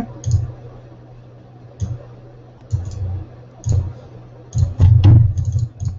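Clicks of a computer mouse and keyboard keys on a desk: single clicks every second or so, then a quick run of clicks near the end, each with a dull knock.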